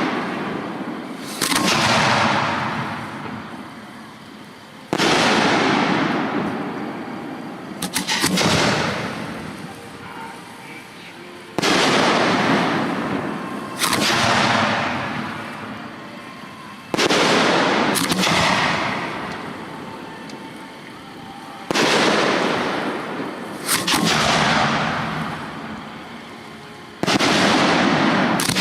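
Aerial fireworks shells going off in a professional display, a loud report every two to four seconds, each trailing off in a long fading rumble; two of them come close together about eight seconds in and again about eighteen seconds in.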